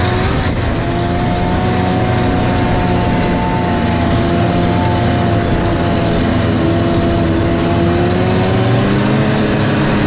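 Snowmobile engine running at a fairly steady speed, its pitch drifting slightly and rising a little near the end.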